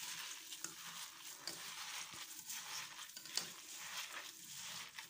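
A hand kneading raw minced meat mixed with grated onion and green pepper in a stainless steel bowl: an irregular soft squishing, with one sharper tap about two-thirds through.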